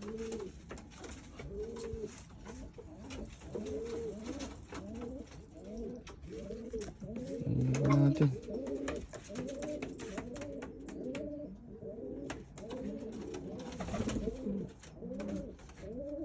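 Racing pigeons cooing, many coos overlapping and repeating throughout, with scattered light clicks and taps.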